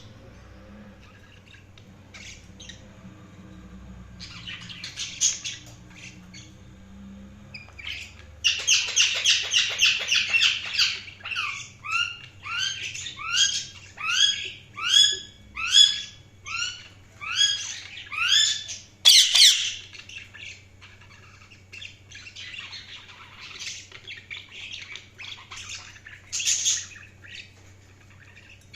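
Budgerigars chirping and chattering. Scattered chirps build to a dense burst of chatter, then a run of repeated sweeping calls about one a second and a single loud squawk, with softer chatter near the end.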